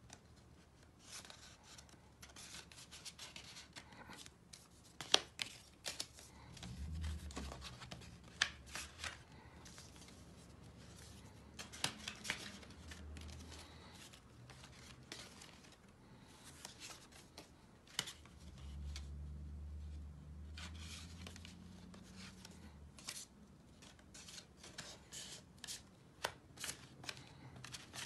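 Stiff cardstock being handled and folded by hand: irregular rustling, light taps and sharp little clicks as the panels of a paper explosion gift box are pressed, creased and tucked into place.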